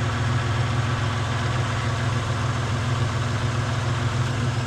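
Truck engine idling steadily with a low, even drone.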